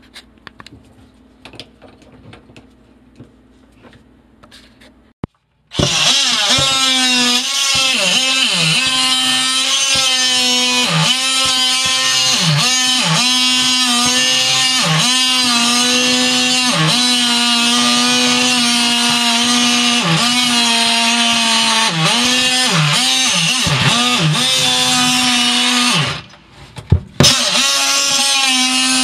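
Oscillating multi-tool cutting into the sink cabinet's floor panel: a loud steady buzz whose pitch dips briefly again and again as the blade loads up. It starts about six seconds in after a few faint clicks, cuts out for a moment near the end, then runs again.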